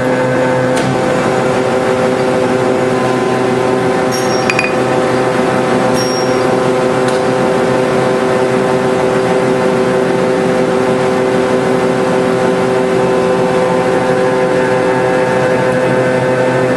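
A machine's motor running at a steady speed, a constant hum that holds one pitch, with a few faint clicks between about four and seven seconds in. It cuts off suddenly at the end.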